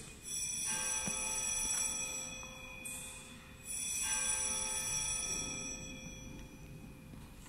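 A bell struck twice, once just after the start and again about four seconds in, each stroke ringing on and slowly fading away.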